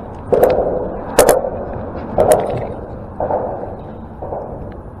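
Water slapping against the boat's hull about once a second, each a sharp slap followed by a short wash, with a few crisp clicks.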